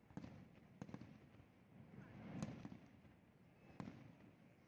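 Distant aerial fireworks shells bursting: four faint bangs spread over a few seconds, with a low rumble swelling around the loudest one in the middle.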